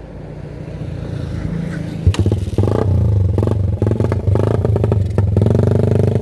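Suzuki Raider 150 single-cylinder engine through a Daeng aftermarket exhaust, running and getting louder, then revved hard from about two seconds in. It is very loud.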